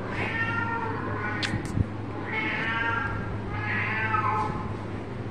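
Kittens meowing: three high, drawn-out meows, each just under a second long.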